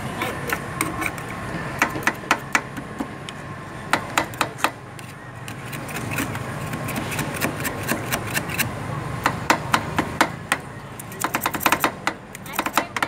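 Two metal spatulas chopping and tapping on the steel cold plate of a Thai rolled-ice-cream stall, as the ice cream mix is chopped up on the frozen plate. The sound is quick, irregular clusters of sharp clacks.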